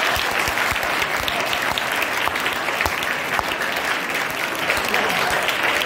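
Audience applauding: many hands clapping steadily in a hall.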